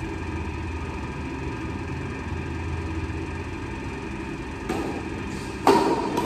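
Badminton rally: a racket strikes a plastic shuttlecock faintly about three-quarters of the way in, then sharply and loudly near the end, over a steady low hum.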